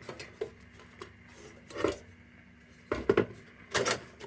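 Thin sheet-metal parts of an Embury No.2 Cold Blast Camlox lantern clanking and rubbing as they are handled and taken apart: a few separate knocks and rattles, the loudest about three and four seconds in.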